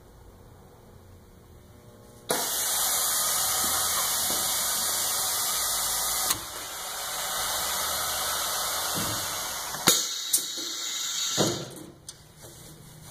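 Aline heavy-duty pneumatic impulse bag sealer cycling. A loud, steady hiss starts suddenly about two seconds in and runs for several seconds, changes after a click, and then gives way to a few sharp clicks before it dies away near the end.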